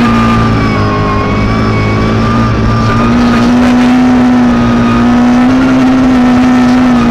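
Suzuki Ignis S1600 rally car's 1.6-litre four-cylinder engine running at high revs in sixth gear, its pitch climbing slowly as the car accelerates, heard from inside the cabin.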